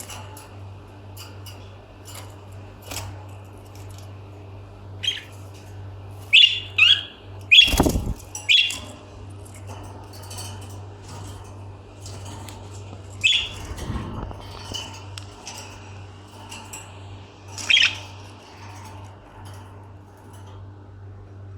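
Pet lovebirds giving short, sharp chirps, in a busy cluster a third of the way in and again twice later, with two heavier thumps among them. A steady low hum runs underneath.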